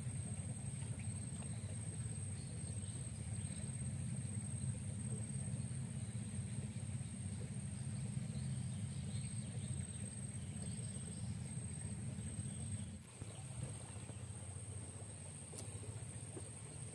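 Outdoor ambience: a low steady rumble with a thin, steady high-pitched whine over it. The rumble eases about thirteen seconds in.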